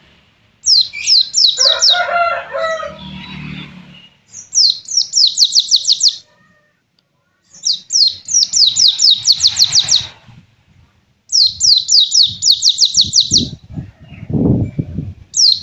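White-eye (pleci) singing its 'pistol air' song: bursts of rapid, steeply falling high notes, about ten to a burst, repeated five times with short pauses between. A lower, separate sound is heard underneath about two seconds in and again near the end.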